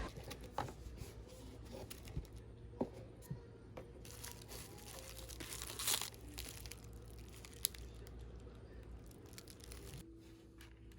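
Quiet rustling and crinkling with scattered small clicks, and a louder rustle about six seconds in, over a low steady hum.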